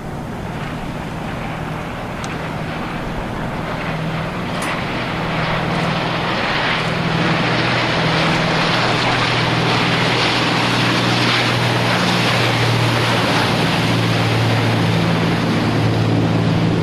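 Engine of the full-size Fantome powerboat running at speed: a steady low drone mixed with a heavy rush of water and wind. It grows louder over the first several seconds, then holds steady. This engine sound was said to resemble a Spitfire's.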